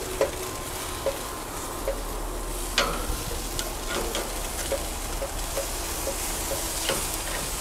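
Ribeye steaks sizzling steadily on a hot gas grill's grates, with small pops of fat. A few sharper clicks come as the metal tongs grip and turn the steaks a quarter turn.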